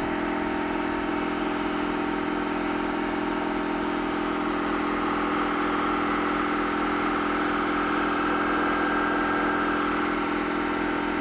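Steady machine hum, like an engine or motor running at a constant idle, holding one even pitch with no change in speed.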